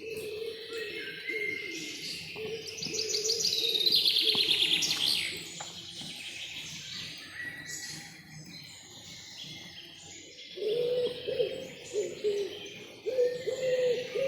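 Forest birdsong: several songbirds singing high phrases, one giving a loud, rapid trill about three seconds in. Under them are low, repeated hooting calls, which become more prominent near the end.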